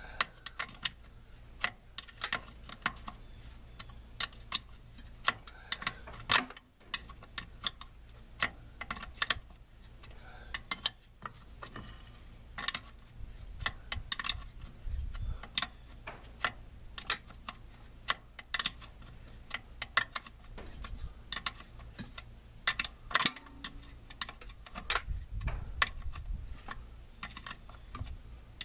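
Irregular sharp metallic clicks and clinks of hand tools working on brake parts, sometimes several a second, over a low steady hum.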